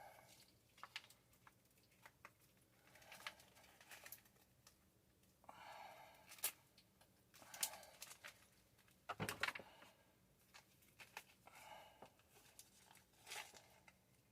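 Faint handling noises of a sump pump and its pipe being worked into place in the pit: scattered clicks and rustles, with one sharper knock about nine seconds in.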